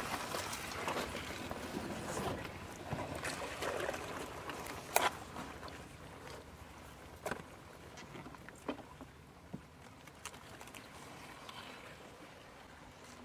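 Small boat moving slowly through still water: soft water lapping and swishing, with a few sharp knocks and clicks here and there. The sound fades gradually toward the end.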